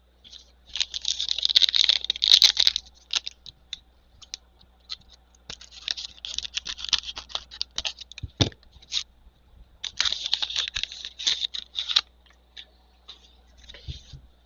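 Trading cards and their pack packaging being handled: rapid crinkling, scratching and clicking in three bursts of a couple of seconds each, with scattered single clicks and a soft thump between them.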